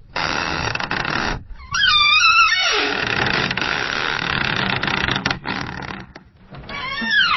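Door hinges creaking as a door swings: a loud grinding creak broken by short pauses, with a squealing hinge note that bends up and down about two seconds in. A fresh creak with a falling squeal starts near the end.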